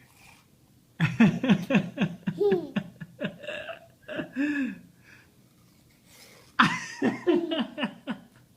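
Two bouts of laughter, quick repeated voiced bursts falling in pitch, the first starting about a second in and the second about two-thirds of the way through.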